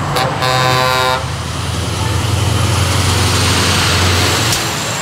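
A Scania semi-truck sounds its horn for about a second. Then its diesel engine and tyres run with a steady low rumble as it drives past.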